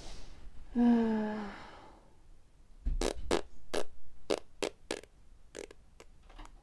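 A woman's playful mouth noises: a breathy blown kiss, a short buzzing tone that falls slightly about a second in, then about ten sharp pops at an uneven pace.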